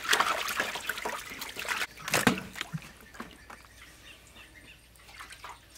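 Water splashing and sloshing in a metal basin as hands scrub raw beef and tripe; the splashing dies down about halfway through, leaving only faint scattered ticks.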